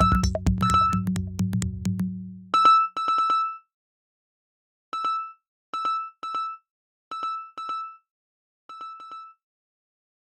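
Electronic techno music with a drum-machine beat and heavy bass for about two seconds; then the beat and bass drop out, leaving short synthesizer blips in small clusters that grow fainter and stop near the end as the track finishes.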